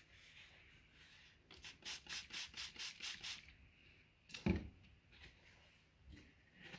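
Paper towel scrubbed back and forth inside a Pringles can to clean it out: about ten quick rubbing strokes, roughly five a second, then a single knock.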